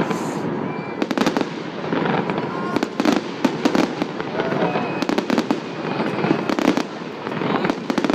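Fireworks display: a rapid, irregular string of sharp bangs and reports, several close together, over a continuous background of crowd noise.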